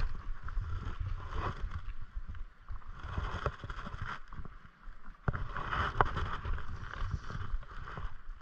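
Shallow stream running over gravel, with wind buffeting the microphone and a few sharp clicks, the loudest about six seconds in.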